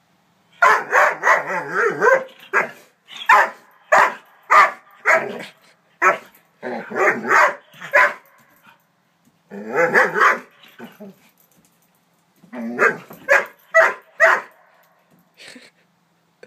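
Young Doberman barking over and over in bursts of several barks each, at a walking toy horse it is afraid of. The barking stops about two seconds before the end.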